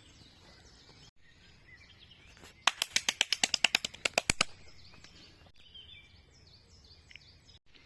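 Birds calling outdoors: a fast rattling run of about ten notes a second that lasts under two seconds, followed by faint, high chirps with falling notes.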